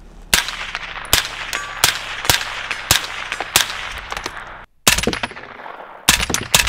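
Angstadt Arms MDP-9 9mm roller-delayed carbine, suppressed with a Dead Air Primal, firing light 70-grain frangible rounds that are supersonic, so each shot keeps a sharp crack; it "didn't sound so great". First comes about six shots at a steady, unhurried pace, then a few more, then a quicker string near the end fired from inside a car, each shot followed by a short ring.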